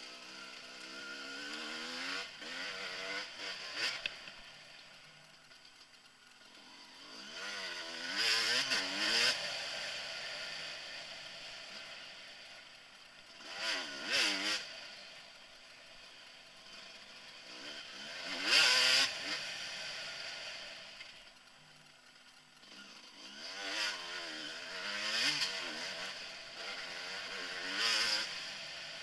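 Dirt bike engine revving up and falling back again and again as the throttle is opened and closed. A loud rushing swell peaks about every five seconds as the bike speeds up.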